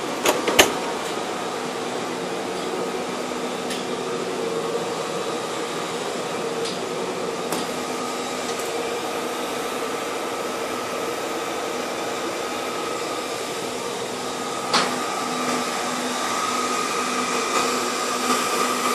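Steady whir of equipment-room cooling fans and air conditioning, with a few fixed humming tones under the noise. A couple of sharp clicks come near the start and another about three-quarters of the way through.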